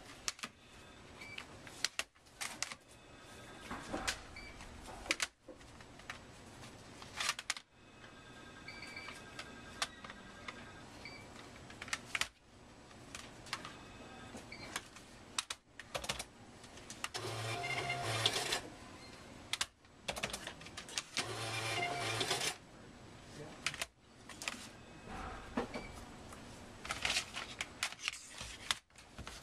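Library check-in of CDs and DVDs: plastic disc cases clacking and snapping on a counter, with a few short electronic beeps. Twice a desk machine buzzes with a low hum, each time for about a second and a half.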